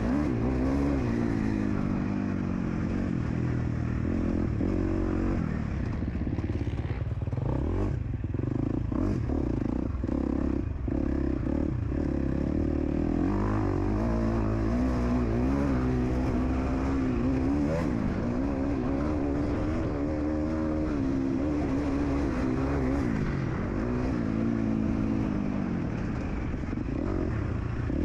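KTM SX-F 250 single-cylinder four-stroke motocross engine running hard under throttle, its note rising and falling over and over as the rider accelerates, shifts and backs off.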